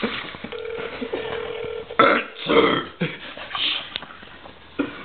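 A steady telephone tone for about a second while the call connects, then three loud, short vocal bursts from a man close to the microphone.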